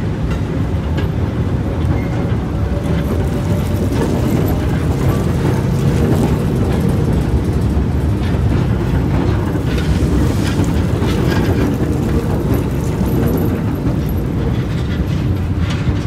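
New R211A subway cars rolling slowly on the rails under tow: a steady low rumble of wheels on track, with occasional clicks.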